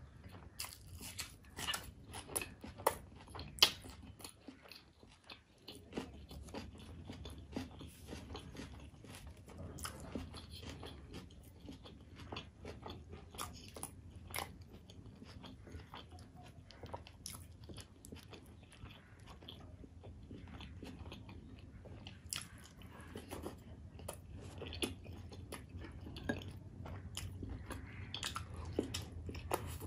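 Close-miked eating sounds: crisp crunching bites of raw onion in the first few seconds, then steady chewing of paratha dipped in curry, with sharp crunches running throughout.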